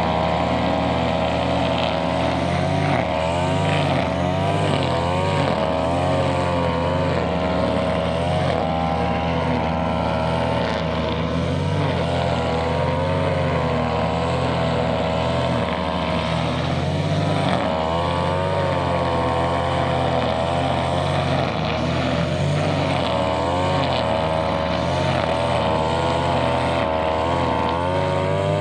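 Brushcutter engine running continuously while trimming grass, its pitch dipping and recovering about once a second as the cutting head meets the grass.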